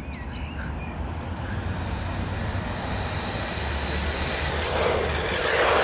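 Small electric RC car running on gritty asphalt, its motor and tyre noise growing louder over the second half as it comes close, over a steady low rumble.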